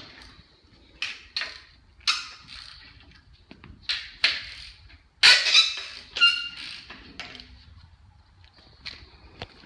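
Hand wrench loosening the tensioned bolts on a steel storm shelter lid, giving about ten short, high metal squeaks in uneven groups as the bolts turn. The loudest squeaks come a little past five seconds in. The bolts are being backed off to relieve the pressure that jams the sliding door against its track.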